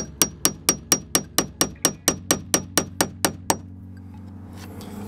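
A hammer tapping a steel nail set in quick, even strokes, about four a second, each with a short metallic ping. The strokes sink a nail head until it is recessed into pine tongue-and-groove siding. The tapping stops about three and a half seconds in.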